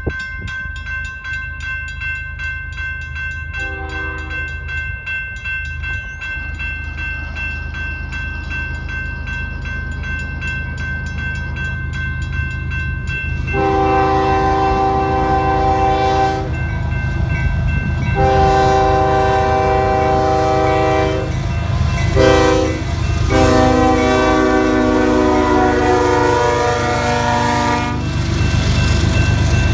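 Railroad crossing bell ringing steadily at an activated grade crossing, while an approaching Union Pacific freight locomotive's air horn sounds the grade-crossing signal: after a faint short toot, two long blasts, a short one and a long one, loud and close. A low rumble of the locomotives grows as they reach the crossing near the end.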